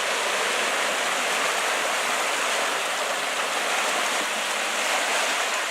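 River water rushing and splashing in a steady hiss.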